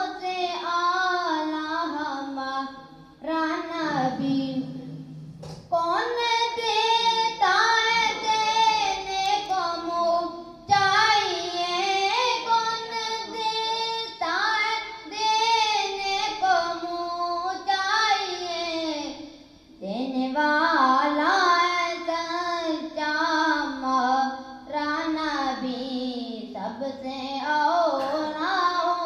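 A boy's solo voice singing Islamic devotional verse into a microphone, unaccompanied, in long melodic phrases with held, wavering notes and two short pauses for breath.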